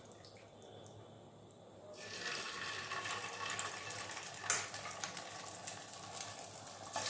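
Chicken pieces frying in hot oil in a pan: faint at first, then a sizzle starts about two seconds in and keeps going, with a short sharp knock midway and the sizzle growing louder at the very end.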